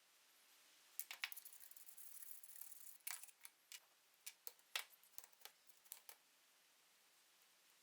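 Light clicks, taps and a brief rustle of small tools and metal parts being handled while a chainsaw engine is being taken apart, clustered between about one and six seconds in and then quiet.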